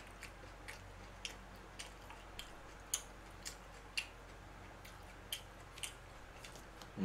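Close-up mouth sounds of a person chewing food: soft, irregular clicks and smacks, roughly two a second.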